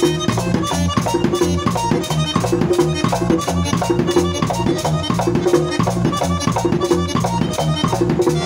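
Live band playing Latin dance music through a PA speaker: electric guitar over a steady, repeating drum beat.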